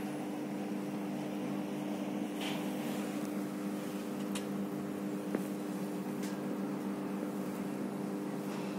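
Steady electrical hum of a transformer station, a constant drone made of a few fixed tones. A few faint clicks sound over it, the sharpest about five seconds in.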